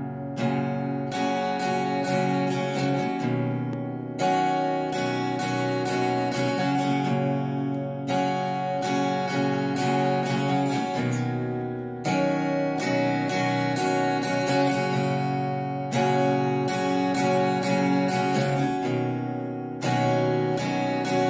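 Solo acoustic guitar playing an instrumental intro, a phrase of quick note attacks that starts anew about every four seconds.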